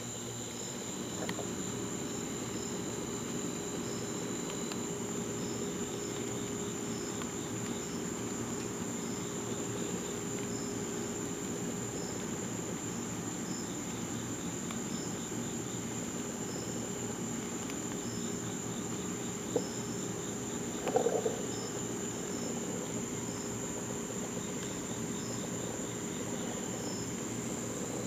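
Night-time insect chorus: crickets trilling in one continuous high steady tone, with a second insect chirping at a slower regular pulse, over a low steady hum. Two short knocks about twenty seconds in.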